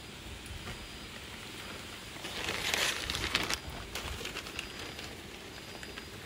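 Brief rustling and crinkling about two seconds in, lasting a second or so, followed by a few light clicks.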